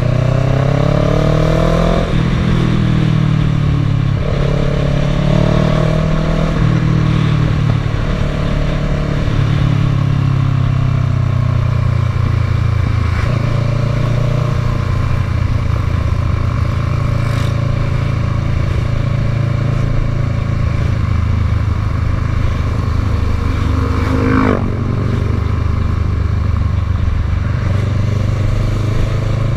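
Kawasaki ER-6n's parallel-twin engine running under way, its pitch climbing and stepping several times as it accelerates and shifts through the gears.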